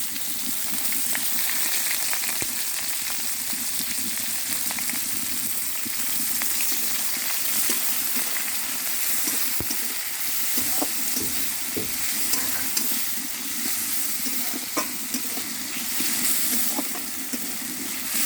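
Onions frying and sizzling steadily in hot mustard oil in a kadai. They are stirred, with scattered short clicks of the utensil against the pan, mostly in the second half.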